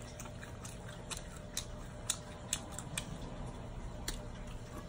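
Faint, irregular sharp clicks and crackles of a cooked shrimp's shell being peeled off by hand, about one or two a second.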